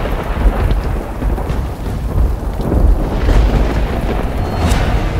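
Thunder rumbling over rain: a deep, continuous low rumble with a hiss of rain, and a brief sharper crack about four and a half seconds in.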